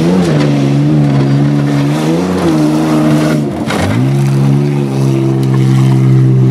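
Pickup truck engines running hard at high revs on a dirt tuff-truck course. The engine note rises briefly twice, drops sharply about three and a half seconds in and climbs back, then holds a steady high rev.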